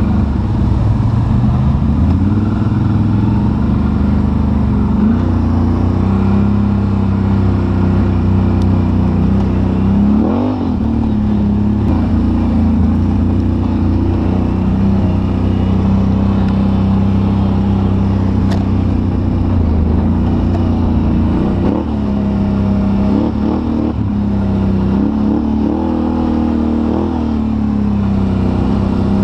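ATV engine running under way, its pitch rising and falling with the throttle several times.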